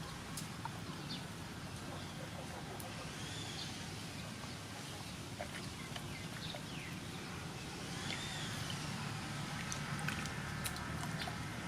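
Outdoor ambience with a steady low hum, a bird calling twice with arching chirps, and scattered small clicks and taps.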